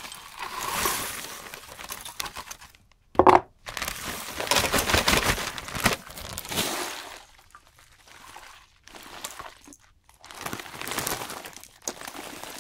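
Clear plastic zip bags of salvaged electronic scrap crinkling and rustling as they are handled and shifted, in several spells with short pauses. A sharp knock just after three seconds in is the loudest sound.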